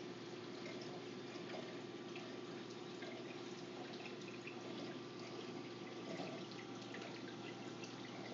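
Reef aquarium water circulating: a steady faint trickle with small drips and splashes, over a steady low hum.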